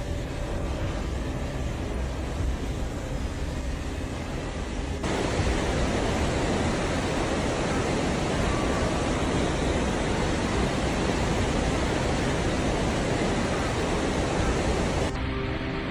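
Rushing floodwater: a steady noise of moving water that becomes louder and fuller about five seconds in.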